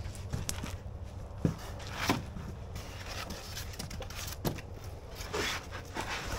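Cardboard box and styrofoam packing pieces being rummaged through and lifted out: scattered scrapes, rustles and a few sharp knocks over a low steady rumble.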